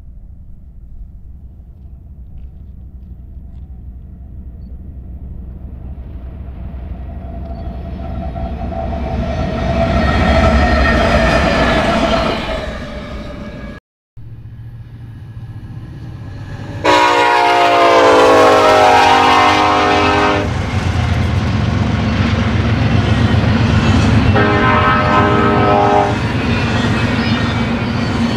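A BNSF freight train rumbling past, building to a peak and then fading. After a break, a BNSF intermodal train's locomotive horn sounds one long blast and a shorter one over the low rumble of the train, with another blast starting near the end.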